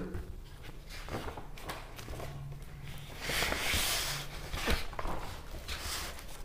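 Pages of a large hardcover book being turned by hand: paper rustling and sliding, with the longest swish of a page about three seconds in and a few light taps from handling the book.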